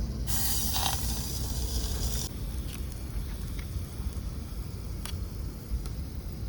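A loud hiss lasting about two seconds, starting and stopping abruptly, over a steady low rumble of wind on the microphone.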